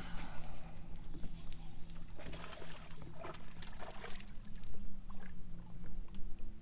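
Water sloshing and splashing at the side of a fishing boat as a small bass is brought in on the line. A steady low hum runs underneath, with a few short splashy bursts in the middle.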